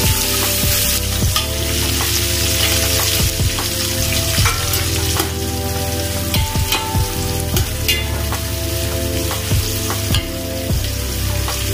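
Sliced onions sizzling in hot oil with whole spices in a large aluminium pot, stirred with a metal spoon that scrapes and knocks against the pot again and again. A low steady hum runs underneath.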